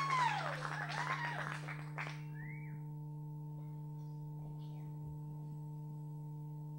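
Audience whooping and cheering, dying away after about two seconds. Then a knock from the microphone being handled on its stand, and a steady electrical hum from the live sound system.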